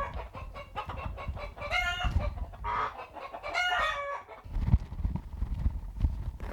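Hens calling: several short, drawn-out squawking calls in the first few seconds, followed by a few low thuds in the second half.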